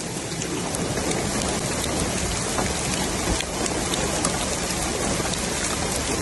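Heavy rain pouring down in a steady, dense hiss with many sharp drop taps, mixed with muddy runoff water washing across the road.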